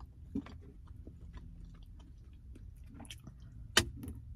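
A person chewing a mouthful of meatballs, with soft wet mouth clicks and one sharp click near the end.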